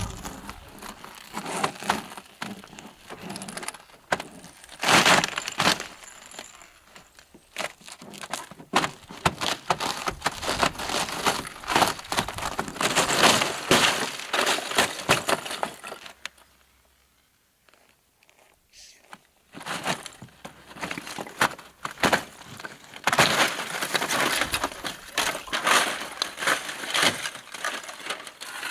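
Ice crunching and cracking, with dense glassy clicks and clinks, falling quiet for about three seconds just past halfway before the crackling resumes.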